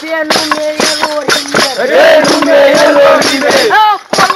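Bear-dance troupe rehearsing: drums beating a steady rhythm of about three strokes a second, with young men's voices chanting and shouting over it. A long, loud, wavering group shout swells in the middle and breaks off near the end.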